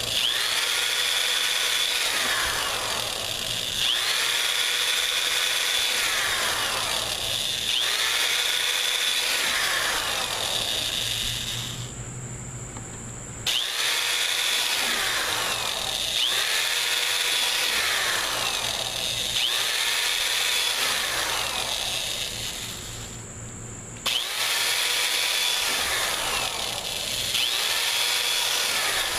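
Electric drill running with a steady high whine while drilling small pilot holes through a cracked plastic fan shroud. The pitch dips and recovers every couple of seconds as the bit bites and the load changes. The drill drops off briefly twice, about a third of the way in and again near the end.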